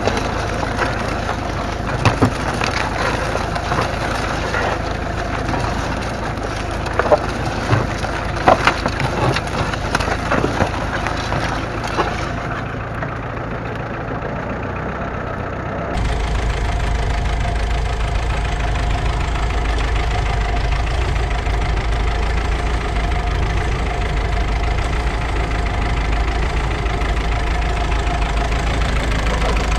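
Plough body cutting through stubble ground: soil crunching and straw stalks snapping in many sharp clicks, with the tractor's engine rumbling underneath. About 16 seconds in, this gives way to the steady running of the Ferguson TEF20's 2.1-litre four-cylinder diesel engine pulling the plough.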